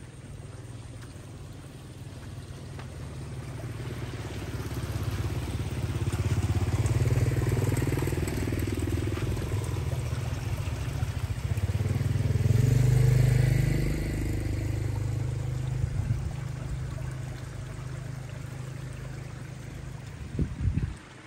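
Small motorbike engines passing close by: the sound builds, peaks twice, then fades away.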